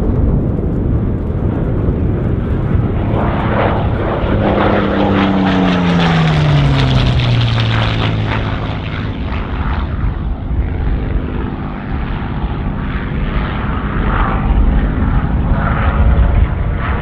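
Supermarine Spitfire's Rolls-Royce Merlin V12 engine in flight overhead during aerobatics. About four seconds in, the engine note sweeps down in pitch over a few seconds as the plane passes, then runs on at a lower pitch and swells again near the end.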